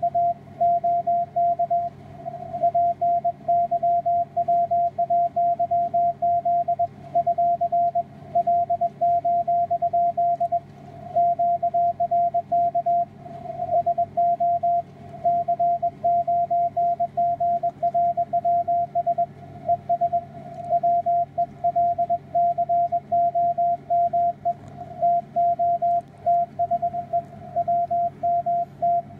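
Morse code (CW) on the 160-metre amateur band from a software-defined radio receiver: a single steady tone keyed on and off in quick dots and dashes, over faint band hiss and a low steady hum.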